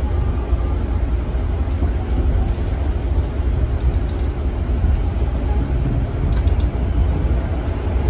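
Electric commuter train running at speed, heard from the driver's cab: a steady low rumble of wheels on rail and motors, with a few faint ticks.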